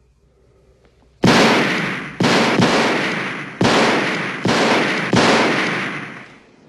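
Six loud handgun shots fired in quick, uneven succession, starting about a second in, each one ringing out and fading before the next.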